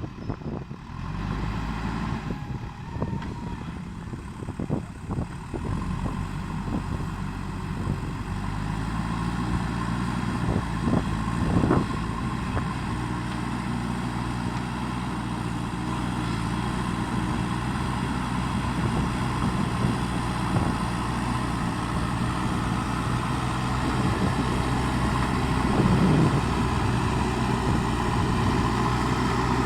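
JCB backhoe loader's diesel engine running steadily while working dirt, with scattered knocks and clanks in the first dozen seconds or so.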